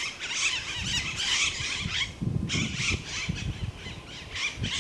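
A flock of birds giving many overlapping high-pitched squealing calls, several a second. A low rumble comes in underneath about two seconds in.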